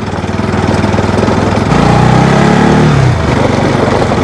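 Bajaj Pulsar motorcycle's single-cylinder engine running as it is ridden. Just under two seconds in the engine note swells louder for about a second and a half, then drops back.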